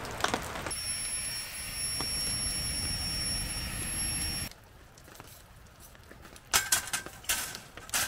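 A steady hiss with a thin, high whistle over it for about four seconds, cut off suddenly. Then, much quieter, a few light metallic clinks as a wire grill grate is handled over a burning fire pit.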